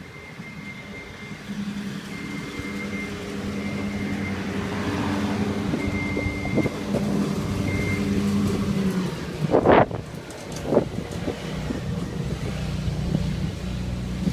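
A motor vehicle running with a steady drone that grows louder over the first few seconds, broken by two short loud thumps about two-thirds of the way through.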